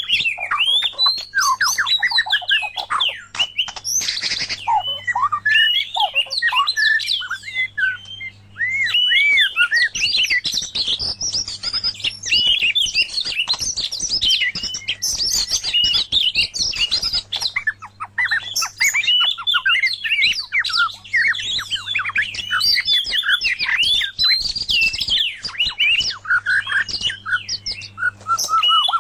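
White-rumped shama and oriental magpie-robin singing: a dense, fast run of varied whistles, chirps and trills with hardly a pause, over a faint steady low hum.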